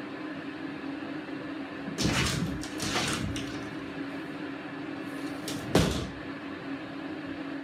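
A cat leaping from a cat tree and scrambling up through an open drop-ceiling tile, heard as scuffling scrapes about two and three seconds in and a sharp knock near six seconds, over a steady low hum.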